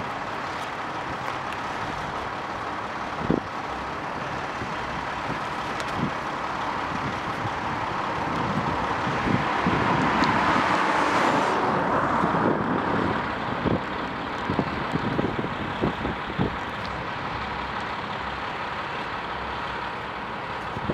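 Steady road traffic noise, with a vehicle passing close by that swells about ten seconds in and fades away a couple of seconds later; a few faint knocks scattered through.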